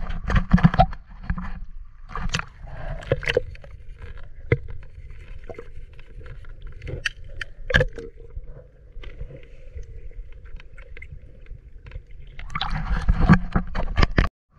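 Water splashing and sloshing around a swimmer's camera as it goes under, then the muffled sound of being underwater with scattered clicks and knocks, and splashing again near the end as the camera breaks the surface.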